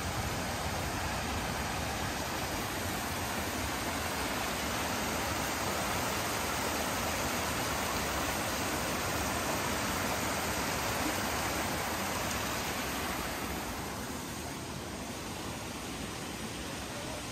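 Rushing water of a mountain stream, a steady hiss that eases slightly near the end.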